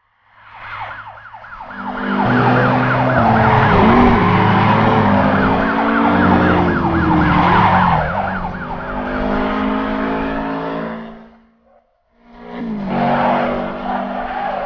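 Police car sirens wailing in a fast, repeating yelp over car engines revving, with pitch sliding as vehicles speed by. The sound cuts out briefly near the end, then a car engine comes back in.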